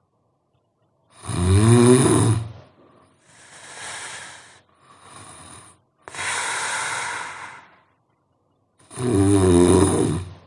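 A sleeping person snoring loudly: two rattling snores about eight seconds apart, with softer breathy sounds and a longer airy exhale between them.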